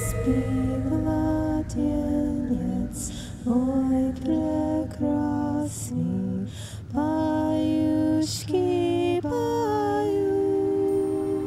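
Film score music: a woman's voice singing a slow melody in short held phrases over a low steady drone, the last note held long near the end.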